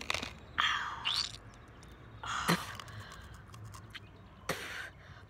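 Mouth and breath noises from eating raw ginger root: three short puffs of breath blown out through pursed lips, with small wet clicks of chewing in between, as the hot ginger burns the mouth.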